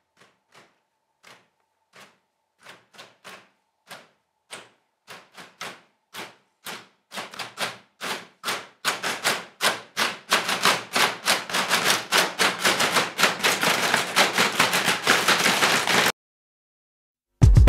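A group of hands patting and slapping a floor mat. It begins as a few scattered pats, then speeds up and grows louder into a dense, rapid drumming, and stops abruptly about sixteen seconds in.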